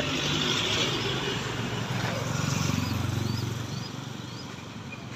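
Toyota HiAce minibus passing close by and driving away, its engine and tyre noise fading over the last couple of seconds.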